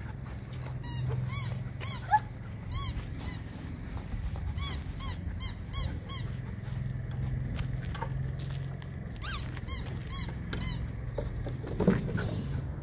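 Belgian Malinois giving many short, high-pitched excited whines in quick succession while working, with a thump near the end.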